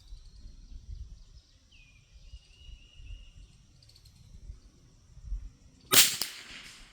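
A single shot from a Brno Model 1 .22 LR bolt-action rifle about six seconds in, sharp and loud with a brief echoing tail. Before it, faint birds chirping and insects.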